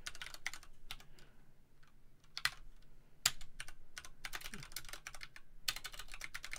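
Typing on a computer keyboard: bursts of quick key clicks broken by short pauses, with two louder single key strikes about two and a half and three and a quarter seconds in.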